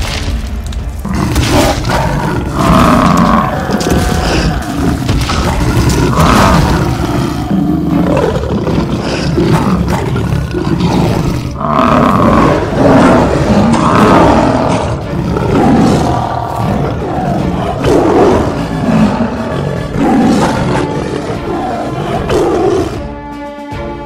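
Dinosaur roar sound effects, one after another in a dense run, over background music. The roars stop about a second before the end, leaving the music.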